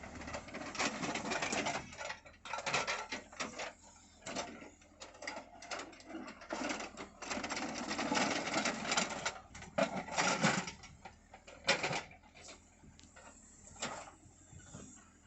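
An excavator at work: irregular metallic clanks, knocks and scraping, loudest in a stretch near the middle.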